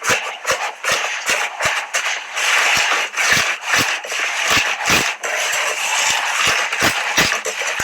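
Slime being squeezed and kneaded by hand: a steady crackling squish broken by many irregular sharp pops and clicks, several a second.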